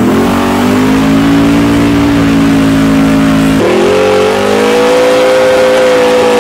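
632 cubic inch big-block V8 in a Chevrolet 454 SS pickup running hard at steady high revs. About three and a half seconds in, the engine note jumps abruptly to much higher revs, climbs a little and holds there, as during a burnout.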